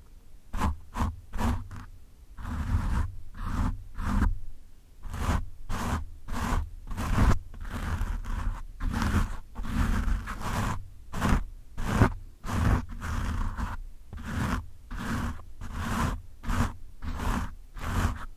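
Fingertips scratching roughly over a foam microphone windscreen, close on the mic: a quick, irregular run of short raspy scratches with a deep rumble under them.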